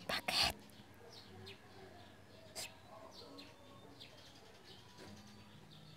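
Small birds chirping in the background: short, faint falling chirps scattered throughout. A loud half-second burst of noise comes right at the start, and a single sharp click about two and a half seconds in.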